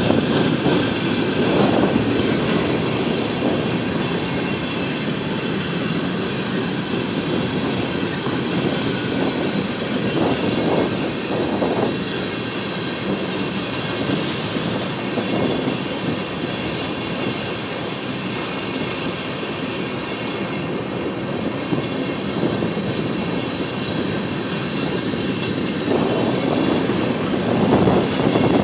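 Empty sand hopper cars of a freight train rolling past slowly. The steel wheels on the rail make a steady rumble, with faint high ringing tones from the wheels and light, evenly spaced clicks.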